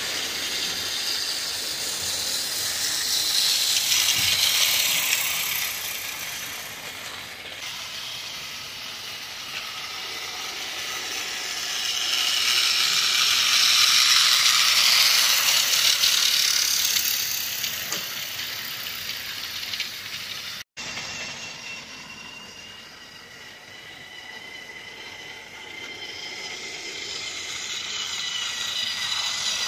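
Battery-powered TrackMaster toy trains running on plastic track: small electric motors whirring and wheels rattling, getting louder as each train passes close and then fading. There are two such swells, then a steadier motor whine that builds near the end.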